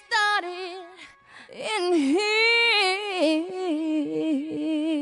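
A single voice singing a wavering, gliding melody with a few held notes, with no instruments or beat behind it.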